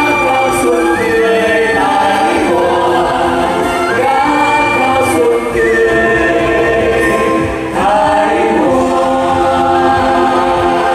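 A group of voices singing a song together over instrumental backing, the closing part of a live stage medley.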